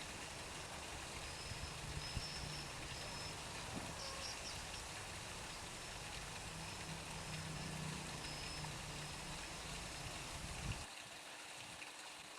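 Water pumped into a garden pond, pouring and splashing steadily, with a low rumble under it that cuts off suddenly near the end.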